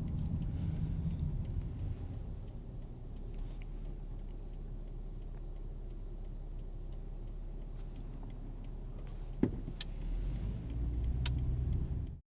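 Car being driven, heard from inside: a steady low engine and road rumble that eases for several seconds and then builds again near the end, with one sharp click about nine and a half seconds in. The sound cuts off abruptly just before the end as the recording camera dies.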